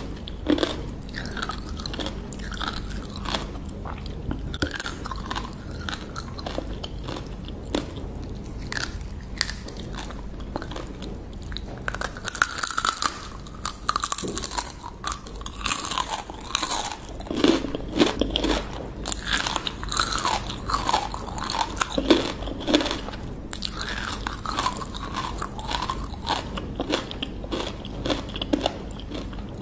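Close-up crunching and chewing of whole field crabs, the shells crackling between the teeth in quick irregular bites, with a few louder crunches around the middle.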